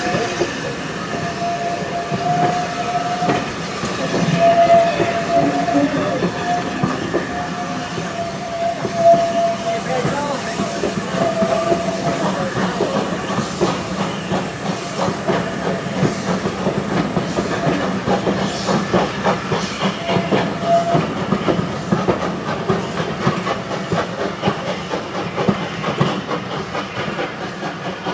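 Steam train pulling away: the locomotive's exhaust and hissing steam over the clatter of the coach wheels on the rails, the clatter growing denser in the second half. A thin high tone comes and goes through the first twelve seconds and once more around twenty seconds in.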